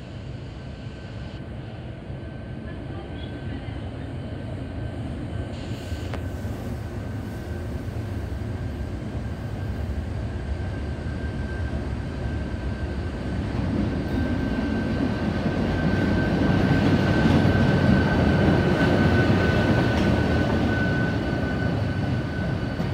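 Train hauled by locomotive 1433 approaching and passing alongside the platform: a low rumble that grows steadily louder and is loudest about three quarters of the way in, with a faint steady high tone throughout.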